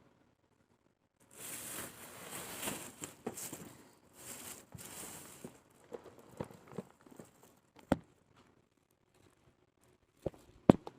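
Packaging and a plastic grocery bag rustling and crinkling for about four seconds as items are handled, then a few light knocks of items being set down.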